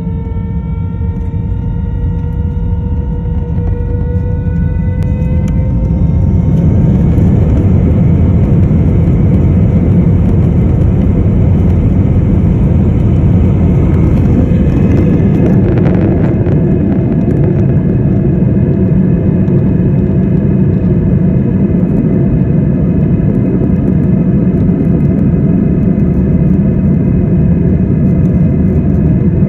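An airliner's jet engines heard from inside the cabin, spooling up with a rising whine over the first several seconds to takeoff thrust. After that comes a steady, loud rumble through the takeoff roll.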